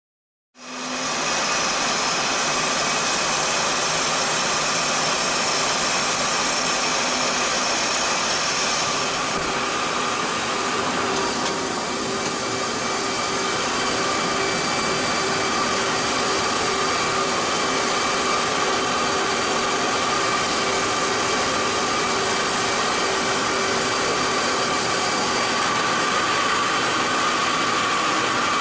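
Twin jet engines of an F-18 running at ground idle, picked up in the open cockpit as a steady rushing hiss with high whining tones. The highest whine drops away about nine seconds in.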